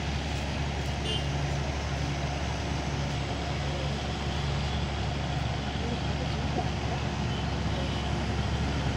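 Narrow-gauge Darjeeling Himalayan Railway diesel locomotive running steadily with a low drone as it hauls its passenger coaches round the loop, growing a little louder near the end as it approaches.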